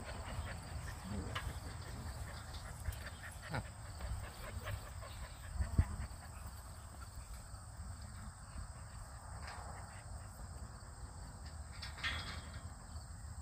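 Outdoor field ambience: a steady high insect drone over a low rumble, with a few short thumps, the loudest about six seconds in.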